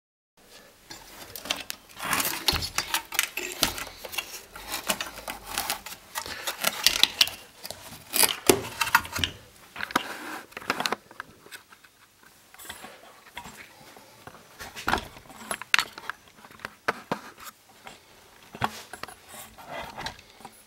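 Hands handling a CRT television's chassis board and wiring: irregular clicks, knocks and rustles of plastic, wire and circuit board, busiest in the first half and sparser later.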